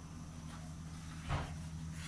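Low steady hum with one soft knock about a second and a quarter in.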